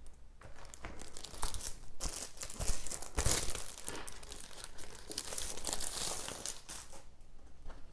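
Rustling and crinkling of a record's inner sleeve as a vinyl LP is handled and slid out of it, in irregular scrapes and crackles.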